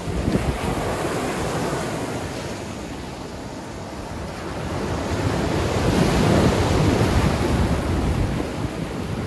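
Sea waves washing onto a gravel beach, with a wave swelling in about halfway through, and wind buffeting the microphone.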